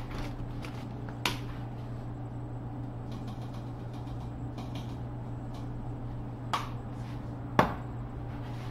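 A steady low hum with three short, sharp knocks of things being handled: one about a second in and two near the end, the last the loudest.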